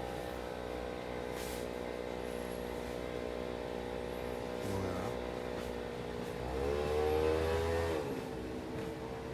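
A vehicle engine running steadily, revving up about six and a half seconds in and settling back down about a second and a half later.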